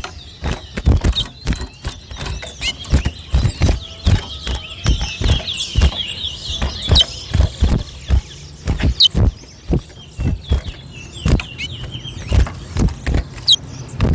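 Caged towa-towa finches chirping, with one warbled, trilling song phrase about four to seven seconds in. Many irregular knocks and thumps, louder than the birds, run through it.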